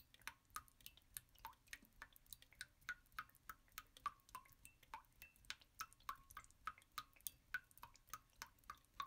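Faint, quick plinks of dripping water, about three a second, each a short falling ping.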